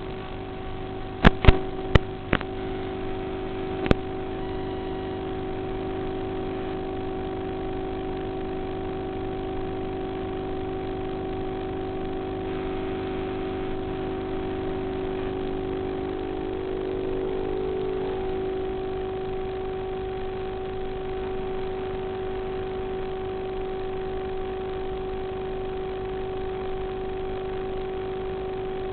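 Twin motors of a radio-controlled model Cessna running with a steady whine that rises slightly in pitch about two thirds of the way through. Several sharp clicks in the first four seconds.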